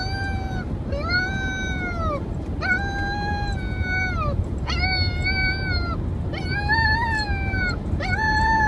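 Puppy howling: a series of about six drawn-out howls, each about a second long, rising then falling in pitch, over a steady low rumble.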